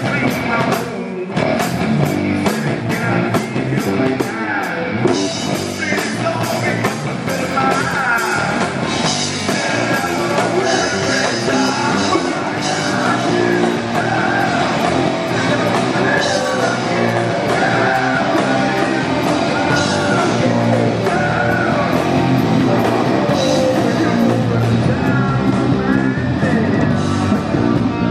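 A heavy rock band playing live: loud distorted electric guitars, bass and drums, with a man singing over them.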